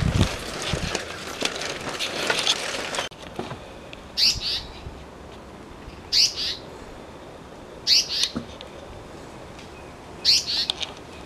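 Crunching, rustling footsteps and handling noise for about the first three seconds, then a short, high, two-part chirp repeated four times, about two seconds apart.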